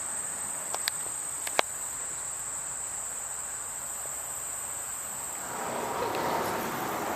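Steady high-pitched chorus of insects chirring in a field, with a few sharp clicks early on and a broad rustling noise swelling about five and a half seconds in.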